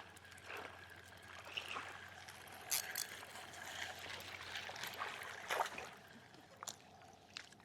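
Faint water splashing and trickling, with a few light clicks, as a hooked small bass is brought in.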